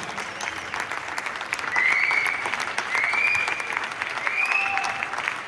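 Audience applauding and clapping, with three short whistles rising slightly in pitch, about a second apart, in the middle of the stretch.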